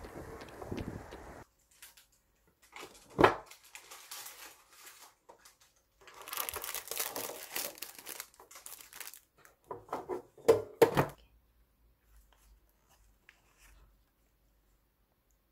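Plastic and foil packaging of Gavottes crêpe biscuits crinkling and rustling as the packets are handled and taken out of their metal tin. Several sharp knocks are mixed in, the loudest a little after three seconds in. The first second and a half is a short stretch of outdoor noise.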